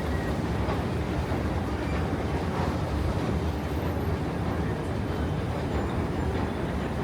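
Steady low rumble of a moving train, running evenly throughout.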